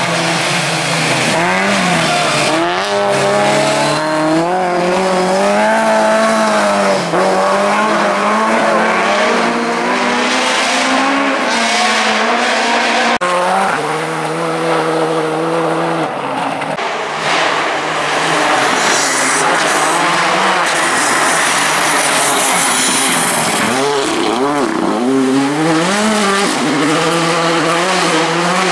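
Rally cars at race pace, one after another: engines revving hard and falling back through gear changes as they drive past, with a sudden switch to another car about halfway through.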